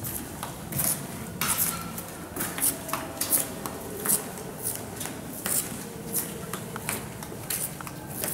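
Footsteps of several people walking on stone paving, a steady, slightly uneven run of sharp steps about two a second.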